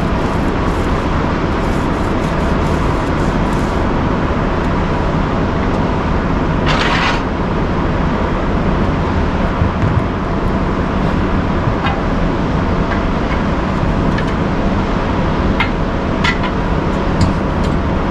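Loud, steady drone of engine and traffic noise, with a short hiss about seven seconds in and a few sharp clinks near the end.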